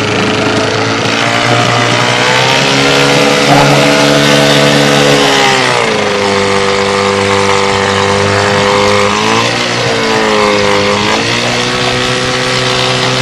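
Evinrude Yachtwin two-stroke outboard motor running steadily at low speed. Its pitch falls about six seconds in, then dips and picks back up again around ten seconds.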